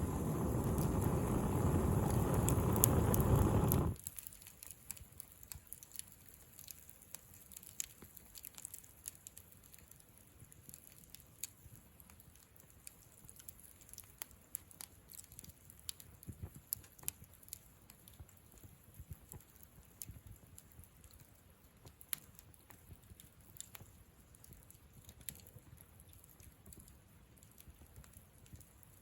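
Campfire crackling, with small sharp pops scattered irregularly. For the first four seconds a loud rushing noise covers it, then cuts off suddenly.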